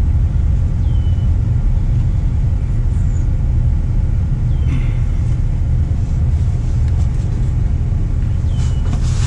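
A loud, steady low rumble, with a few faint clicks about halfway through and again near the end, and three faint short high chirps.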